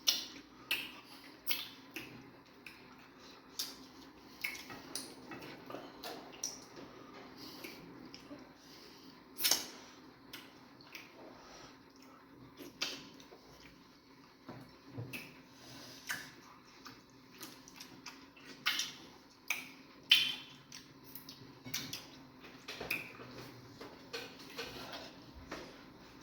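Close-up eating sounds of fufu with egusi soup: irregular wet clicks and smacks of chewing and swallowing, with occasional taps of dishes, over a faint steady low hum.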